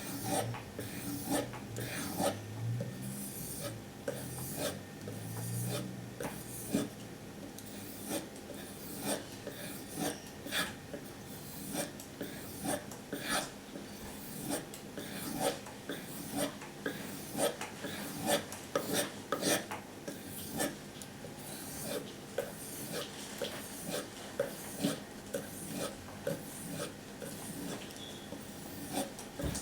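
A SOG Flash 2 knife blade being rubbed over a sharpening surface in repeated, even strokes, a dry scraping swish with each pass.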